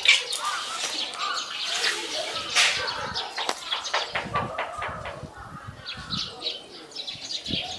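Two raccoons tussling, with short high chirping calls and a scatter of scuffling clicks.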